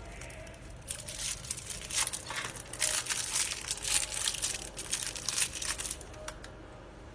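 Crinkling and crumpling of plastic packaging being handled, starting about a second in and going on in irregular bursts for about five seconds.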